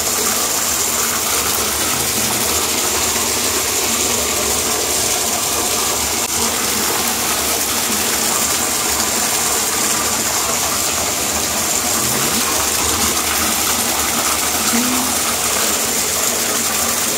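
Water running steadily into a bathtub, an even rushing noise that does not change.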